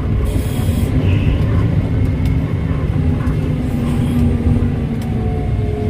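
Komatsu HD785-7 haul truck's V12 diesel engine and drivetrain running under way, a steady low drone heard inside the cab, with faint tones slowly shifting in pitch.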